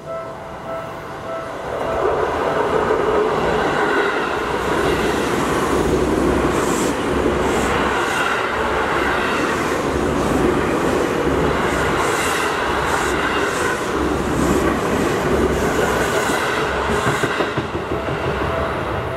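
Electric commuter train on the Seibu Ikebukuro Line running through a level crossing, its wheels clacking in pairs over the rail joints. The crossing's warning bell rings at the start and is drowned out as the train passes.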